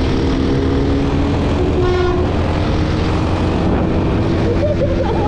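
Motorcycle running at steady speed with heavy wind noise on the rider's microphone, and a short higher-pitched tone about two seconds in.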